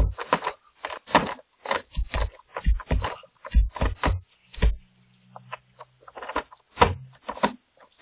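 A man's voice right up against a video doorbell's microphone: a quick run of short, unintelligible vocal bursts with close-mic thumps, and a low steady drone for about a second midway.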